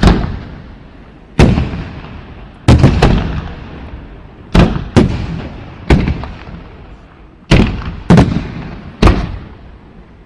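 Display fireworks going off: about a dozen loud booms at uneven intervals, some in quick pairs, each followed by a rolling echo.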